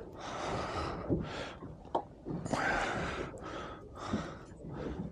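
Breathing close to the microphone: about half a dozen irregular, breathy puffs, some longer and some short, with no words.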